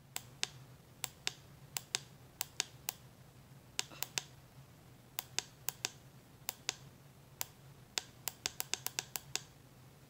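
Sharp clicks, many in quick pairs, repeating through the whole stretch from buttons being pressed on a handheld ceiling fan remote, over the low steady hum of a Harbor Breeze Platinum Wakefield ceiling fan running.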